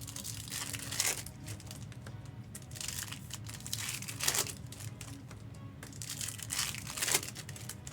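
Plastic card-pack or box wrapping crinkling and being torn in several short bursts, over quiet background music.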